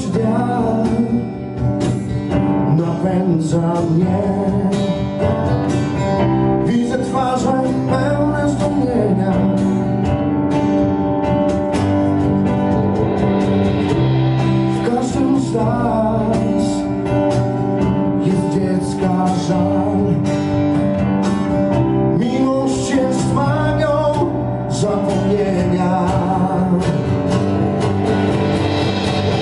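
Live band playing a song on acoustic guitar and keyboard, with a man singing into a microphone through parts of it.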